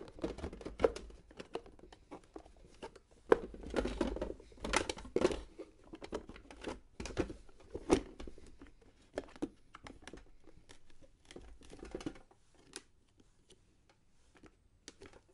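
Tomica Buzz Lightyear spaceship toy case being handled, its plastic body and folding wing panels knocking, clicking and rustling irregularly. The sounds are busiest in the first half and thin out toward the end.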